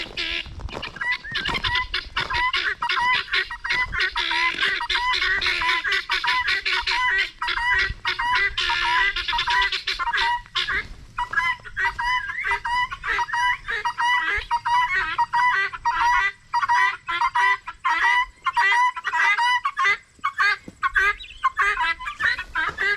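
A flock of guinea fowl and chickens calling, with many short pitched calls in quick succession, densest in the first half.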